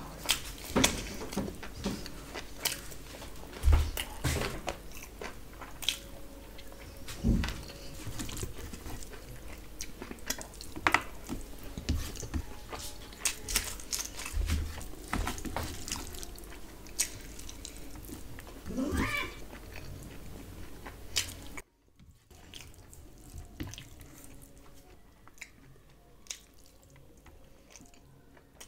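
Close-miked chewing and wet mouth sounds of a person eating mutton kacchi biryani by hand, with clicks of fingers scooping rice on a metal plate and a few dull thumps. About three-quarters of the way through, the sound drops suddenly to a fainter level.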